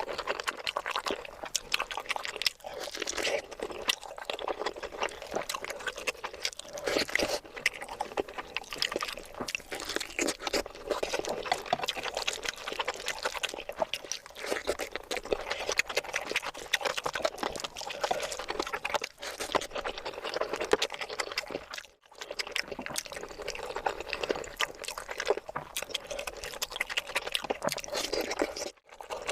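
Close-miked wet eating sounds: chewing and mouth smacking on rice and curry, a steady stream of small wet clicks with brief pauses about two-thirds of the way through and just before the end.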